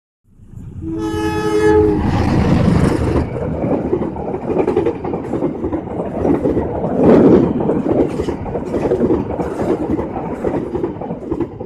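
A train's horn blows briefly about a second in, two notes sounding together. A train then runs close past, its wheels clattering over the rail joints.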